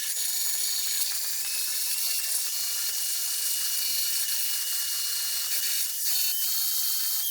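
Power drill spinning a wire wheel brush against freshly silver-soldered steel bike parts, scrubbing off flux residue and solder mess. It makes a steady whir and scratching that runs without a break.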